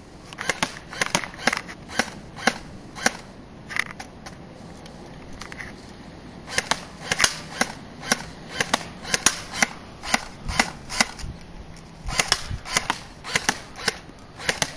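Airsoft Thompson M1A1 submachine gun firing BBs: sharp, light snapping shots. A few spaced shots come first, then after a short pause faster strings of shots, and a last string near the end.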